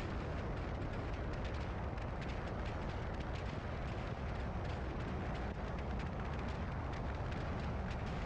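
A car's driving noise: a steady low rumble of road and wind noise with many small crackles on top.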